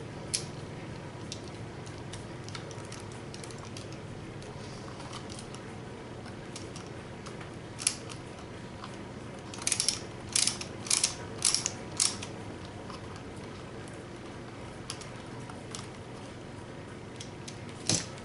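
Sharp clicks and taps of small plastic and metal parts being handled as camber links are fitted onto an RC truck's rear hub; a few single clicks, then a quick run of about five clicks roughly half a second apart near the middle.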